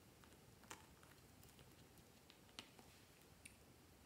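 Near silence broken by a few faint, scattered clicks of a small plastic squeeze tube being handled and squeezed by fingers.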